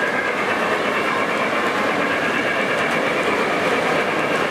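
O gauge model freight train's flatcars rolling past on three-rail track, a steady sound of metal wheels running on the rails.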